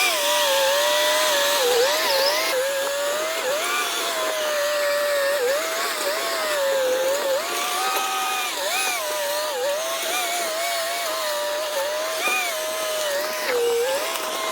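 A steady motor whine, its pitch wavering and dipping briefly every second or two.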